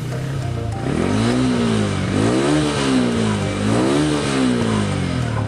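Yamaha R15 V3's 155 cc single-cylinder engine being revved: it picks up about a second in, then rises and falls in pitch three times in a row.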